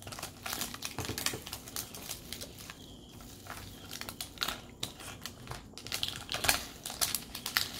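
Thin plastic wrapper crinkling in many small irregular crackles and clicks as it is peeled by hand off a plastic surprise egg.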